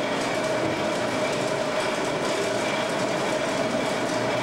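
Stone grist mill running and grinding grain: a steady, loud mechanical noise with a constant hum.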